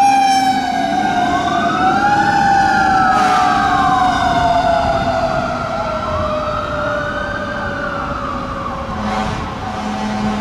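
A Federal Signal Q2B mechanical siren on a fire engine winding down in one long falling tone, while a second siren wail rises and falls twice. Both grow a little fainter as the engine drives away.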